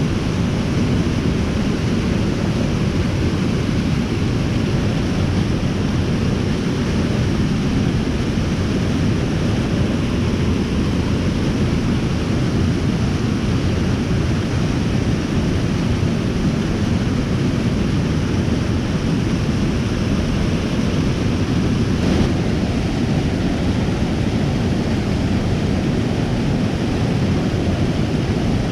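Waterfall's rushing water, a steady loud noise with most of its weight low down.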